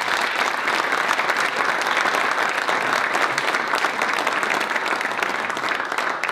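Audience applauding: many hands clapping at once in a dense, steady patter that fades out near the end.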